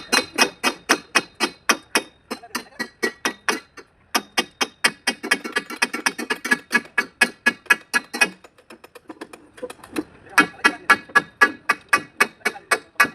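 Rapid series of sharp taps or light hammer strikes, about four or five a second, in runs broken by short pauses and one longer pause about two-thirds of the way through.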